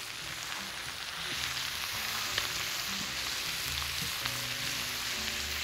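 Onions and spices sizzling in butter in a stainless-steel skillet as they are stirred with a spatula, a steady frying hiss. Faint background music plays underneath.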